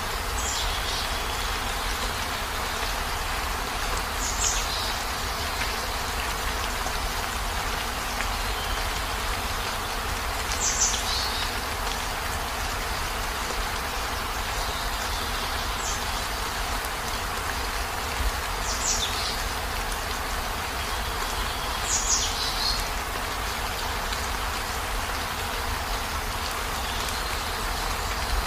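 Heavy rain falling steadily on a van's roof and windows, an even hiss over a low rumble. Short high sounds that fall in pitch come through the rain every few seconds.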